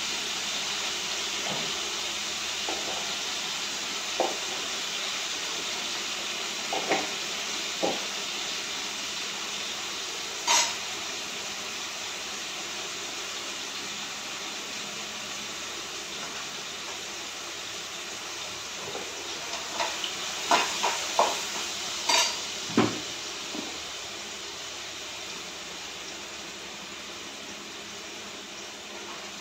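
A steady hiss, with scattered clinks and knocks of steel kitchen utensils and containers being handled, several in quick succession about two-thirds of the way in.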